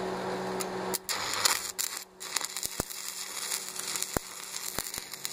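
Stick (arc) welding electrode striking an arc about a second in and crackling irregularly as it lays a tack weld on a steel plate. A steady hum before the arc starts.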